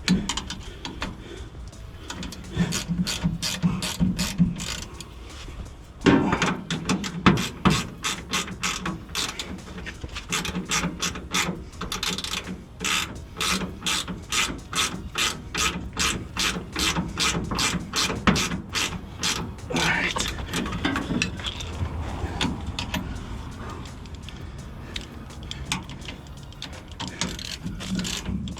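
Hand ratchet wrench clicking in fast runs of strokes, tightening a shock absorber's mounting bolt. The clicking is densest through the middle.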